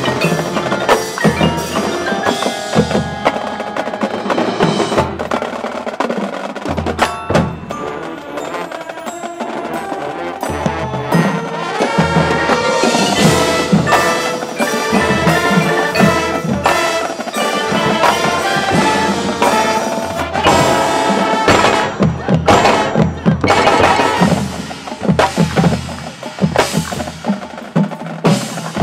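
High school marching band playing its competition show in a percussion-heavy passage: the front ensemble's mallet keyboards and drums are to the fore, with many quick struck notes over sustained pitched parts.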